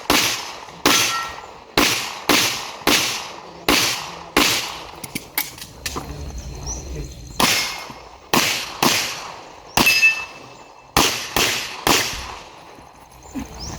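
Pistol fired in rapid strings at a shooting range, about twenty shots, often two or more a second, each followed by a short echo, with a brief lull about five to seven seconds in.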